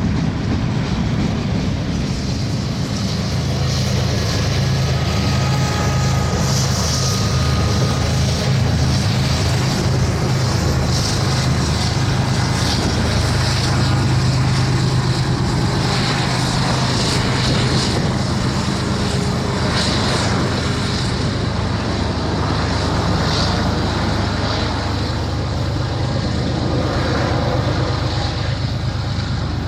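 Diesel-electric freight locomotives running steadily, a deep, even engine drone with a hiss of train noise above it.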